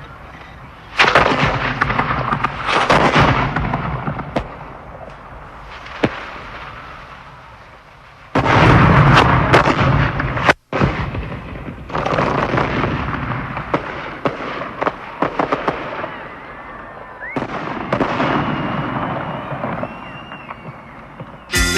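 Fireworks going off: clusters of crackling and sharp bangs, the loudest about a second in and again around the middle, with a few faint whistles later on. Keyboard music cuts in right at the end.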